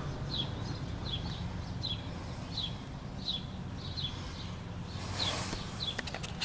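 A bird chirping over and over: short, high chirps that slide down in pitch, evenly spaced about every three-quarters of a second, over a steady low hum. A brief rustle comes about five seconds in.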